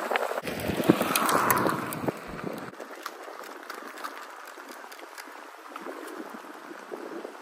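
Inmotion RS electric scooter's off-road tyres rolling over gravel: a crackling hiss with scattered clicks of small stones. It is louder and rumblier for the first few seconds, then quieter.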